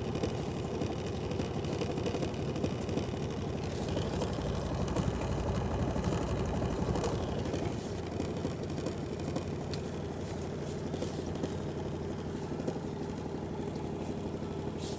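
Washing machine running with a steady mechanical hum that eases slightly about halfway through.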